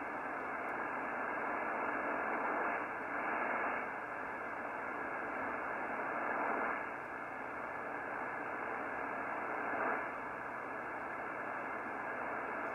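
Static and band hiss from a Yaesu FTdx3000 HF transceiver's speaker as its VFO is tuned down through the 20-metre band, swelling slightly every few seconds with no stations heard: an empty band at solar minimum.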